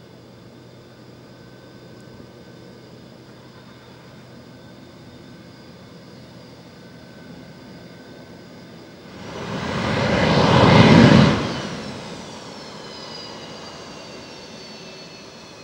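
Jet aircraft engine noise on an airport apron: a steady hum with a faint whine, then a loud rush that swells over about two seconds as something passes close, peaks and drops away suddenly, leaving a whine that slowly falls in pitch.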